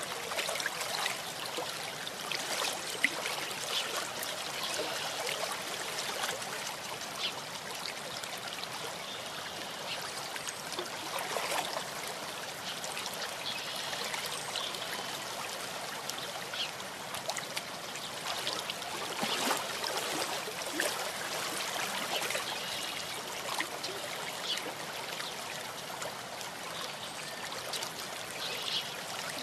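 A small stream babbling and trickling steadily, with many small splashes.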